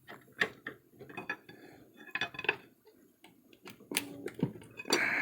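Steel pry bar and hand tools clinking and scraping against the crankshaft pulley and engine front: a string of irregular light metallic clinks and knocks as the bar is worked behind the pulley.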